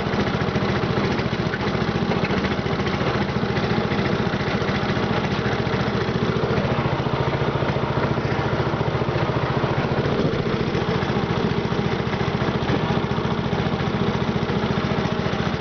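Westwood 1200 lawn mower's engine running steadily at an even speed, with no revving.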